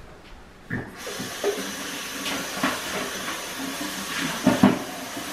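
A steady hiss starts abruptly about a second in and runs on, with a few soft knocks over it.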